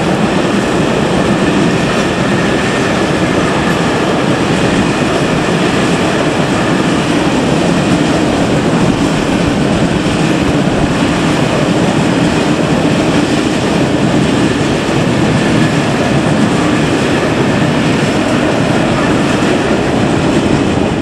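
Freight train of covered grain hopper wagons rolling past close by: a loud, steady rumble and rattle of steel wheels on the rails.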